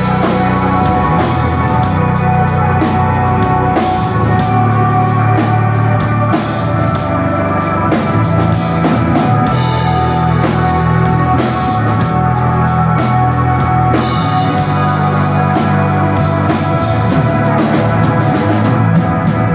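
Live rock band playing an instrumental desert rock piece: electric guitar over bass and a drum kit, steady and loud.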